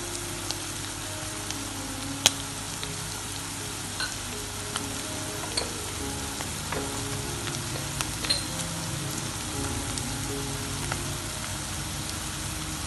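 Minced veal and onions frying in a pot, a steady sizzle with scattered sharp clicks and taps. The loudest click comes a little over two seconds in.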